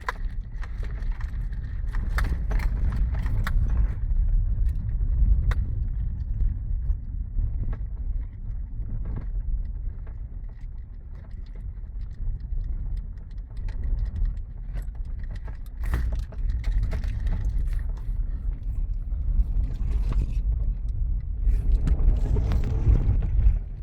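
Small car (a Kia Picanto) driving on a gravel road: a steady low rumble of tyres and road noise, with many scattered clicks and rattles. The rumble eases off in the middle and grows louder again near the end.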